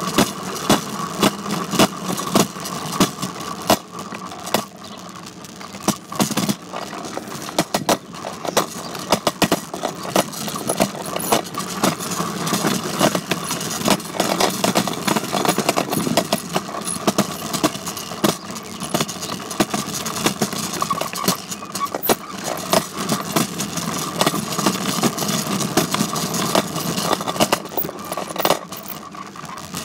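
Bike rattling and clattering as it is ridden, many small knocks over a steady hum.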